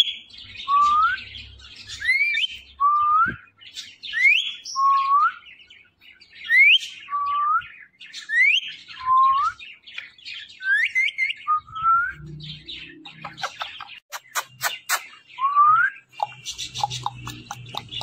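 Ringneck parrot whistling a two-part call over and over, about once every two seconds: a short high rising whistle followed by a lower rising one. A run of sharp clicks comes about two-thirds of the way through.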